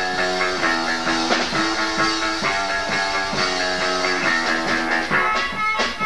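Live rock band playing, led by guitar chords that change about every second.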